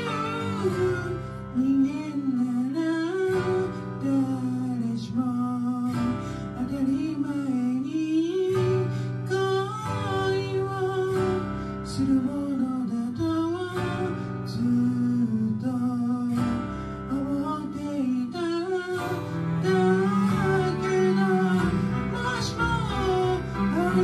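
Karaoke singing of a slow ballad over an instrumental backing track, the sung melody rising and falling in phrases a second or two long.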